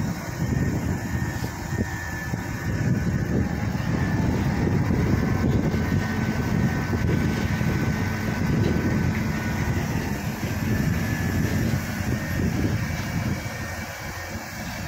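Crane truck's diesel engine running steadily to power its truck-mounted hydraulic crane as the crane lifts a heavy load, with faint steady high-pitched tones above the engine sound.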